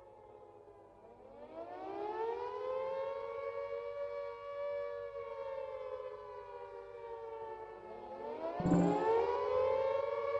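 Carter electromechanical civil defence siren wailing with two close notes. It starts low, winds up about a second and a half in, holds, sags, then rises again about three-quarters of the way through, with a short knock as it rises.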